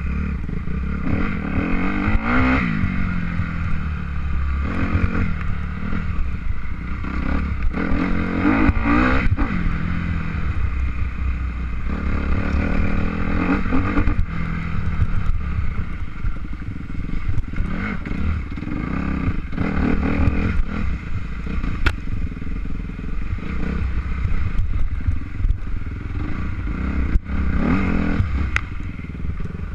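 An engine running and revving up and down again and again, its pitch rising and falling every few seconds, over a steady low rumble.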